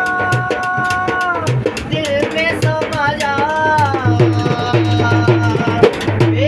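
A man singing a qawwali, holding one long note for about the first second and a half and then moving into gliding, ornamented phrases, over fast hand-played strokes on a metal-shelled drum with deep thuds.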